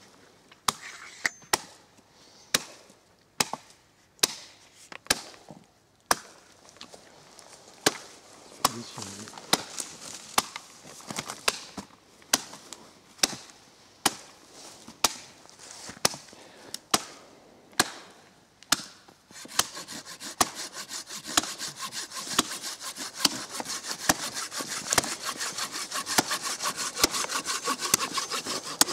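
A heavy machete (about 700 g) chops into a birch branch, about one blow a second. About two-thirds of the way through, a Fiskars folding saw joins in with rapid, continuous rasping strokes through the wood while the chopping goes on.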